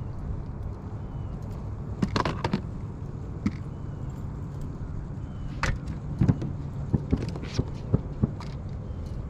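Handling sounds on a small fishing boat while an angler works a spinning rod: a steady low rumble with scattered sharp clicks and knocks, a cluster about two seconds in and several more in the second half.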